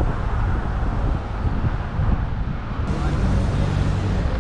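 Wind buffeting the microphone over a steady low rumble of car road noise.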